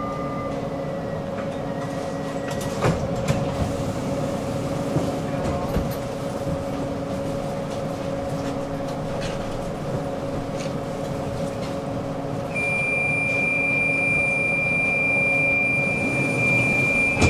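Tram interior: a steady rumble and electrical hum, with a few faint clicks. About thirteen seconds in, a steady high beep starts and holds for several seconds.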